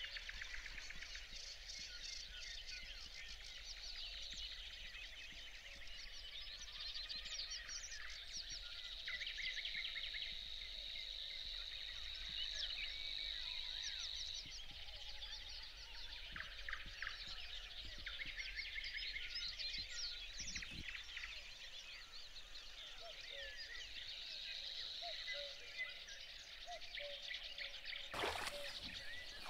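A dawn chorus of many songbirds singing together over a wet meadow. Through the middle a Savi's warbler reels: a steady, insect-like buzz on one high pitch that sounds like something electric, held for about six seconds, then again briefly later. Two sharp knocks come near the end.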